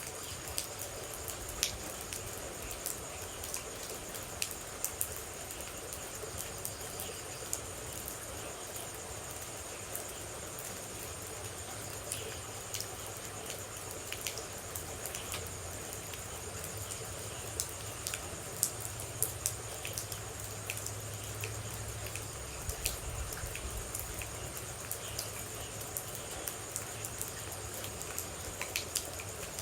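Steady rain with water droplets dripping and pattering at irregular moments, over a continuous high-pitched trill.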